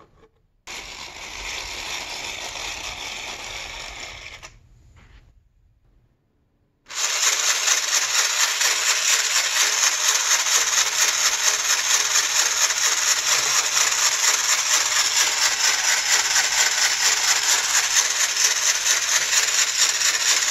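Small high-speed electric hobby motor driving a 3D-printed plastic gearbox and walking-leg linkage, a steady whir with the plastic gears and joints rattling fast. A short run starts about a second in and dies away by about five seconds; after a brief silence the motor starts again at about seven seconds and runs on, louder and steady.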